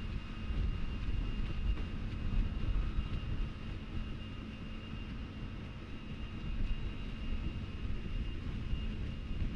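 Ultra Heavy-Lift Amphibious Connector prototype running: a steady machine drone with a strong low rumble and a thin, high, steady whine.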